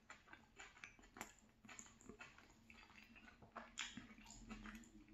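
Faint chewing and mouth sounds of a man eating a chicken and vegetable stir fry: irregular soft smacks and clicks, a few each second.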